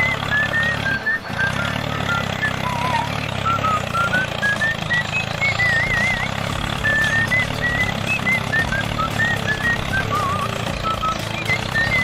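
Steady low engine running for a toy road roller pressing down wet concrete. Short, high, chirpy whistled notes, some warbling, sound on top throughout.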